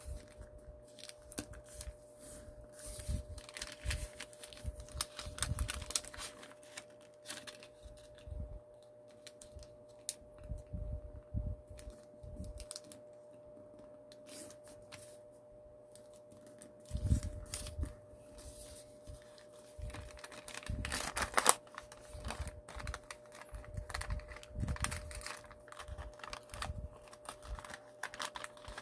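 Origami paper being folded and creased by hand: irregular crinkling and rustling with scattered sharp clicks and soft low knocks, loudest in a cluster about 21 seconds in.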